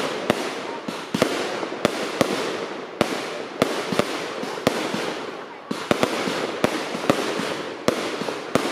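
Aerial fireworks display: a quick run of sharp bangs as shells burst overhead, about two a second and some in quick pairs, over a continuous crackling rush.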